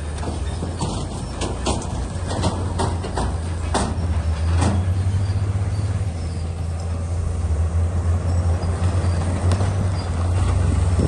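Bulldozer's diesel engine running with a deep, steady throbbing drone, with a run of sharp metallic clanks and knocks over the first half.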